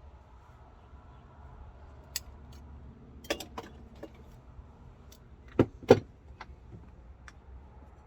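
Workshop handling clatter: a scattering of light clicks and clinks, with two louder knocks close together a little past halfway, over a faint low hum.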